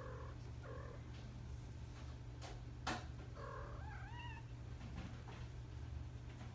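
Kittens mewing: several short, high meows, one of them wavering up and down in pitch about four seconds in, with a couple of sharp clicks just before it.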